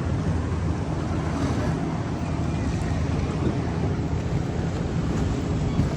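A boat's motor running steadily, with wind buffeting the microphone and water noise.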